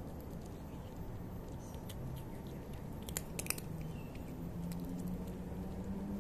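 Domestic cat chewing dry kibble, small irregular crunches with a few sharper cracks about three seconds in.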